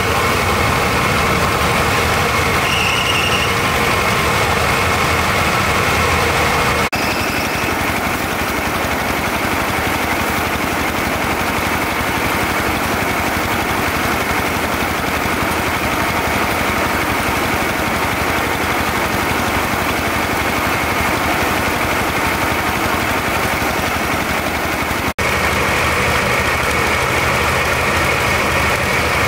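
Engine-powered rice threshing machine running steadily, a continuous loud mechanical drone of engine and drum, with a very brief dropout about 25 seconds in.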